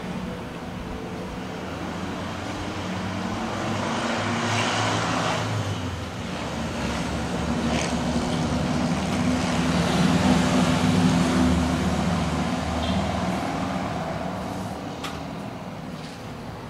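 Road traffic noise: a steady rumble of passing vehicles that swells around the middle and fades again, with a few sharp clicks near the end.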